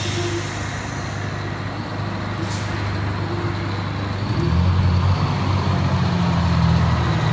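Fire engine's diesel engine running, then pulling harder and louder about four seconds in as the truck rolls out of the station bay. A short air-brake hiss comes about two and a half seconds in.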